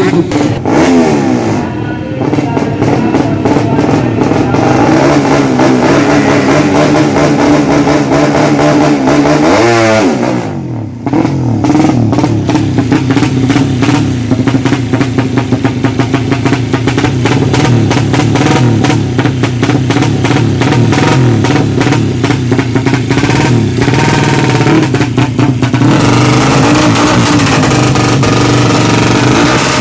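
Tuned-up Suzuki Satria FU drag bike engine, bored to 200cc, revving hard at high rpm. About ten seconds in its pitch sweeps down, briefly drops off, then climbs again.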